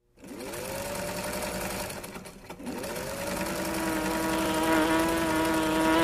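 Electric sewing machine running: its motor hum rises in pitch as it speeds up and settles. It slows off briefly a little past two seconds in, then speeds up again and holds a steady pitch.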